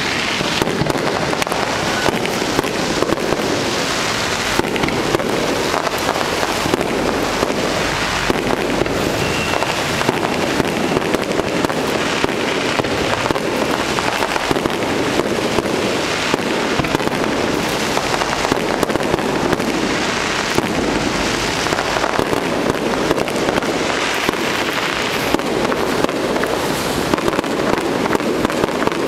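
Aerial fireworks going off in a dense, continuous barrage of bangs and crackling, with no pause.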